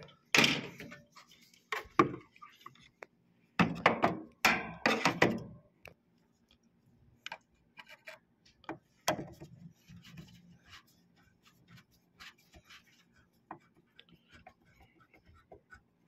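Knocks and clatter of parts and casing being handled inside a window air conditioner: a few loud knocks in the first five seconds, then only sparse light clicks over a faint steady low hum.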